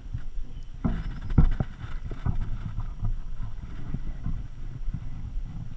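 Knocks and bumps on a kayak, a cluster of them about a second in and the loudest about a second and a half in, over a steady low rumble of wind on the camera microphone.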